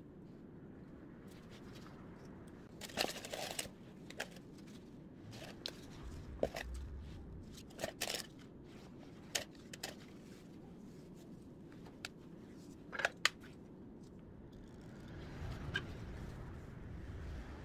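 Scattered clicks, snips and rustling as hands work a red plaid ribbon and evergreen sprigs on a Christmas wreath, with a loud rustly burst about three seconds in and another near the end.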